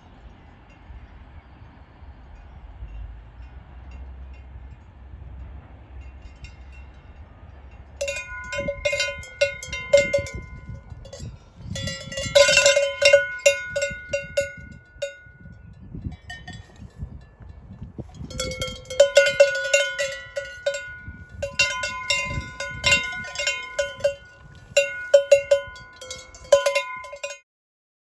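Cowbells on grazing cattle clanging irregularly in bursts of ringing metallic strokes, with a pause in the middle. A faint low rumble comes first, then the bells set in and cut off suddenly near the end.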